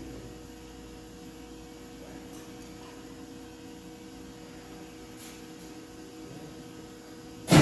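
Steady low hum in the shop with the tractor quiet; right at the end the Allis-Chalmers 180 pulling tractor's engine suddenly fires with a loud burst on its first start after improvements.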